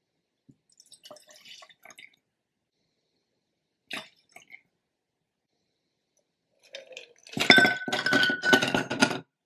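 Faint clinks and a light trickle of pink gin poured from a metal jigger into a glass. About seven seconds in, ice cubes clatter into the glass for about two seconds, a rapid run of clinks with the glass ringing.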